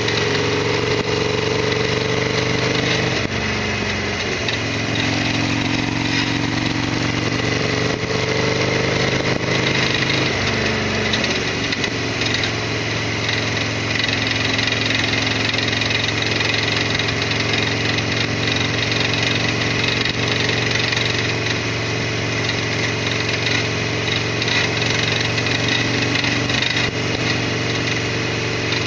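Harley-Davidson Sportster XL1200R's air-cooled V-twin running while the bike is ridden, heard through a helmet chin-mounted action camera's microphone. The engine note shifts up and down several times in the first ten seconds or so, then holds steady.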